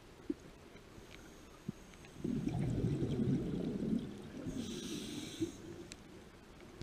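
Underwater scuba breathing through a regulator: a diver's exhaled bubbles rumble for about two seconds, starting a couple of seconds in, followed by a short hiss of the next inhalation.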